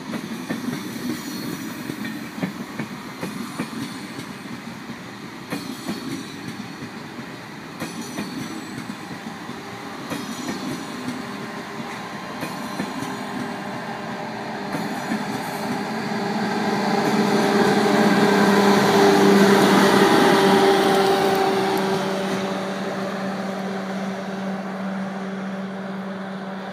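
Eurostar Class 373 high-speed train passing at moderate speed, its wheels clicking over rail joints every couple of seconds as the coaches go by. A steady electric hum grows to a loud peak about three-quarters through, then eases off.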